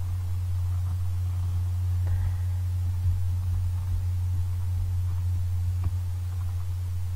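Steady low hum with faint hiss underneath: the recording's background noise with no speech.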